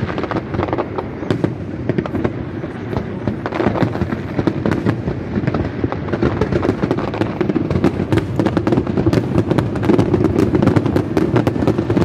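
Aerial fireworks bursting in quick succession: a continuous dense crackle of sharp pops over a low rumble, growing busier and louder in the second half.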